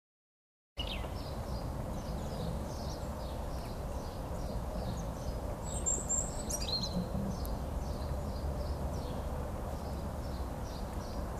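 Outdoor garden ambience with a small bird chirping, short high notes repeating a few times a second, over a low steady rumble. It starts about a second in after a moment of silence, with a couple of sharper, higher calls near the middle.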